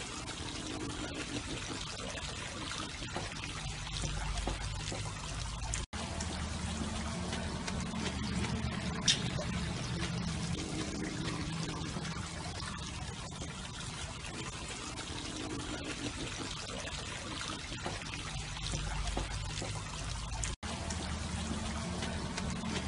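Running water pouring and trickling steadily, with one short sharp click about nine seconds in.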